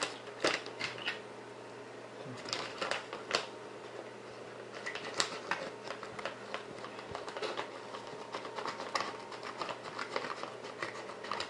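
Foil moisture-barrier bag crinkling and rustling as it is handled, in irregular sharp crackles.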